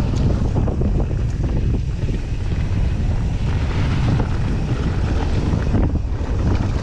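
Wind rushing over an action camera's microphone as a mountain bike descends at speed, mixed with the rumble of its tyres rolling over a dry dirt trail and a couple of light knocks from the bike over bumps.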